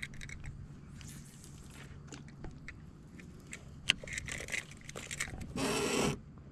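Handling noise from a spinning rod and reel: scattered light clicks and scrapes over a faint steady low hum, with a brief louder rushing burst about five and a half seconds in.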